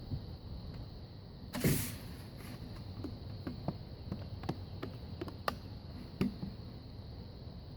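A short scraping rustle, then a run of about seven light clicks and knocks, irregularly spaced roughly half a second to a second apart, over a low steady background hum.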